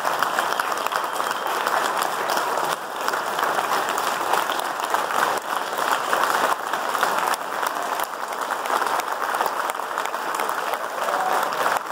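Crowd applauding, many hands clapping in a dense, steady patter.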